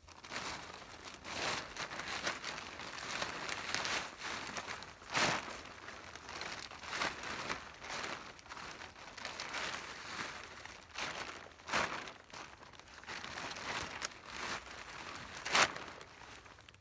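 Plastic tarp crinkling and rustling as it is pulled across the ground and folded over, with a few louder crackles about 5 s in, about 12 s in and near the end.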